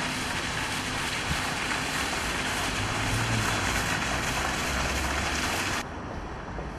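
Steady rushing noise of wind on the microphone over fast-flowing floodwater. About six seconds in it drops in level and turns duller.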